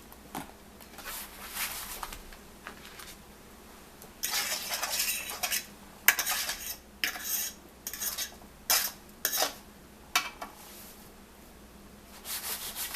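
Kitchen clatter of a metal baking sheet and utensils: a run of short scraping and clinking noises, with a longer scrape about four seconds in and a sharp clink just after it.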